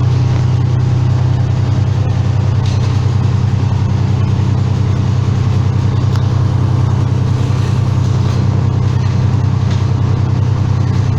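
An engine running steadily at an unchanging speed, with a strong low hum.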